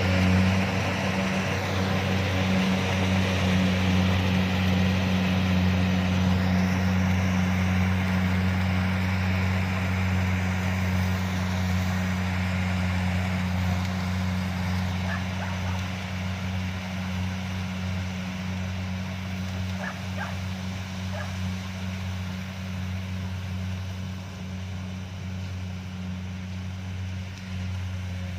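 Kubota DC-70 combine harvester's diesel engine and threshing machinery running with a steady low drone, slowly growing quieter towards the end.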